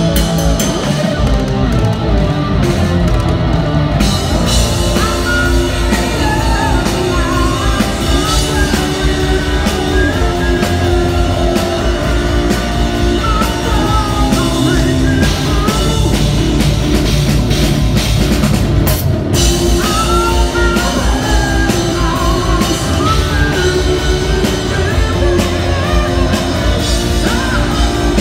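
Live rock band playing loud: distorted electric guitar, electric bass and drum kit, with a male lead vocal coming in about five seconds in.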